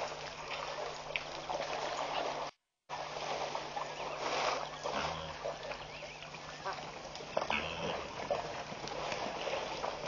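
Elephant herd drinking and wading in a waterhole: water splashing and trickling, with scattered animal calls over it. The sound drops out completely for a moment about two and a half seconds in.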